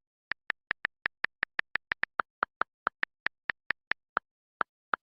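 A rapid, slightly uneven string of about two dozen short, sharp clicks, roughly five a second, spacing out over the last second, with dead silence between them.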